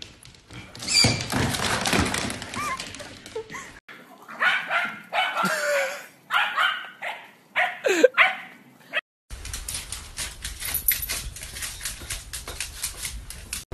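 A dog barking, a run of short barks over about four seconds, with noisy stretches before and after that change abruptly.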